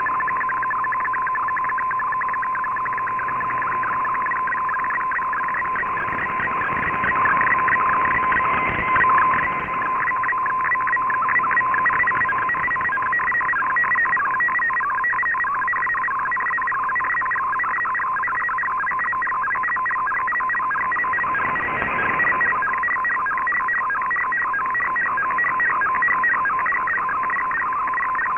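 MFSK64 digital picture transmission on shortwave, heard through a communications receiver: rapidly warbling data tones over hiss, with a steady tone beneath them, as an image is sent line by line.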